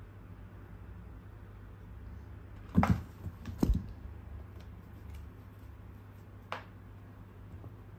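Two sharp knocks about a second apart near the middle, then a fainter tap later, over a low steady hum.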